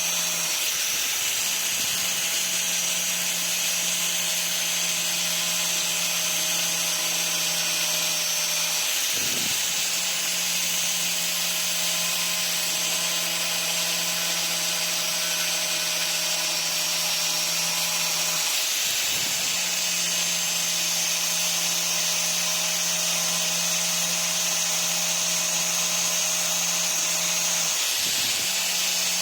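Power drill running a brazed diamond core bit, a steady motor hum under a strong high grinding hiss. The hum briefly dips about every nine to ten seconds.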